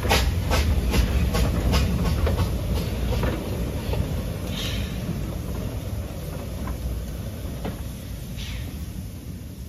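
Narrow-gauge steam tank locomotive Southern 762 'Lyn' moving off: sharp exhaust chuffs that come quicker and grow fainter as it draws away, over a low rumble of the running gear. Two short hisses of steam come about halfway through and near the end.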